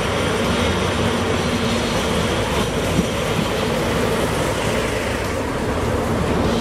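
JNR Class DE10 diesel locomotive pulling a train of coaches slowly in along the platform: its diesel engine running with a steady low drone over the sound of the wheels on the rails.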